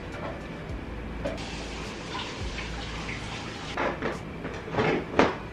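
Low rumbling, then a run of knocks and clatters, the loudest near the end.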